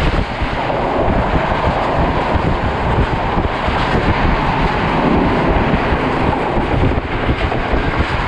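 Passenger train running fast, heard from an open carriage doorway: a loud, steady rush of wheels on the rails mixed with wind buffeting the microphone.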